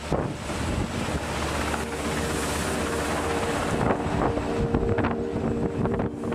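Wind buffeting the microphone over the rush of the sea, with a helicopter flying past at a distance. A set of steady low tones comes in about two seconds in.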